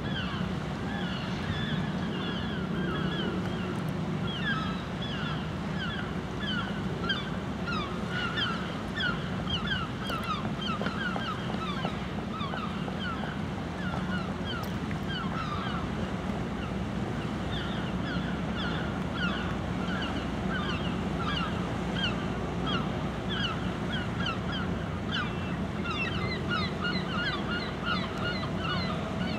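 Many short, falling bird chirps, several a second, over a steady low rumble of wind and river noise.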